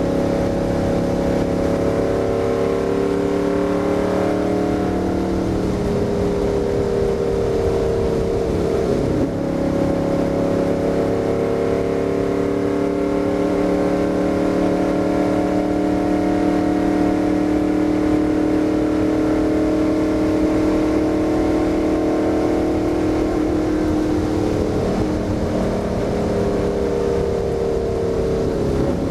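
Stock car's V8 engine running hard under load, heard from inside the cockpit. Its pitch dips while lifting through a turn about five seconds in, climbs back and holds steady on the straight, then dips again entering the next turn near the end.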